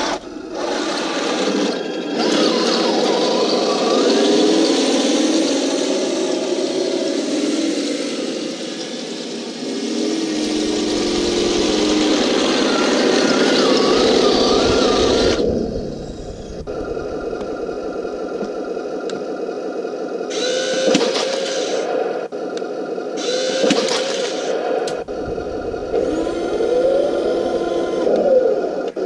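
Radio-controlled Walker Bulldog model tank driving over grass: its drive motors and gearing whine and the pitch rises and falls as it moves and turns. It is loudest for the first fifteen seconds, then quieter, with a few short louder bursts.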